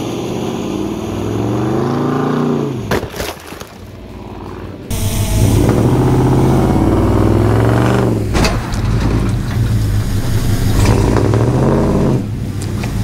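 Ram 2500 pickup's engine accelerating hard, its pitch rising in several separate runs. A couple of sharp bangs fall about three and eight seconds in.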